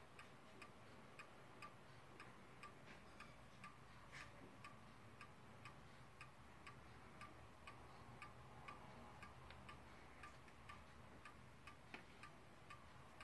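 Weight-driven pendulum wall clock ticking faintly, about two ticks a second, while it is being set in beat so that the tick and the tock come evenly.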